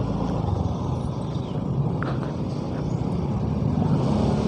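Motorcycle engine running steadily while being ridden, with road noise, growing slightly louder toward the end.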